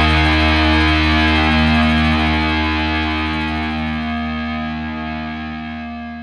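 Music: a distorted guitar chord held and ringing out, slowly fading away.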